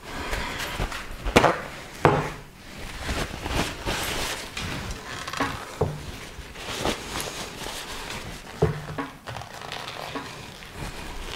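Kitchenware being handled: scattered knocks and clinks of dishes and utensils, the sharpest about one and a half and two seconds in, with scraping and rustling between them.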